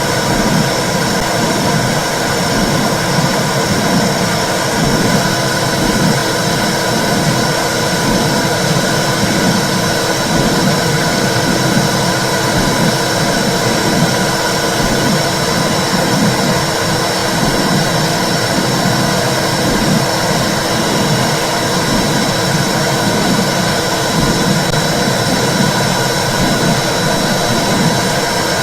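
Womb sound for soothing babies: a loud, steady low rushing noise with a faint rhythmic pulse, like blood flow heard inside the uterus.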